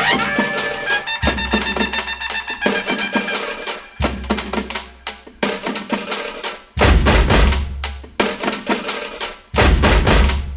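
Music with drums and percussion, in short pieces that cut abruptly from one to the next about four, seven and nine and a half seconds in.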